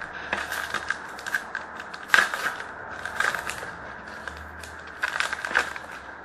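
A trading-card pack wrapper crinkling and being torn open, with cards handled, in several short crackly spells, the loudest about two seconds in.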